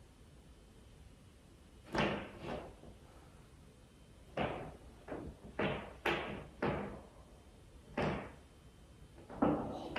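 A series of about nine irregular bangs or thuds from the room directly above, muffled through the ceiling, unexplained by the listeners.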